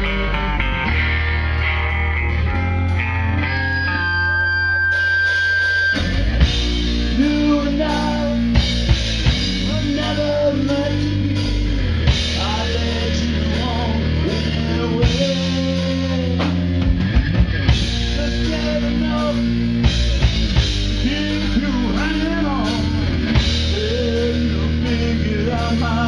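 Punk rock band playing live: a hollow-body electric guitar plays alone at first, ending in a held note, then drums and bass come in together about six seconds in and a man sings over the full band.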